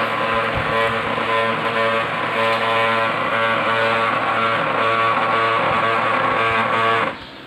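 Brother DCP-L2540DW laser printer making a loud grinding noise as its drive runs, a harsh pulsing sound that cuts off suddenly near the end.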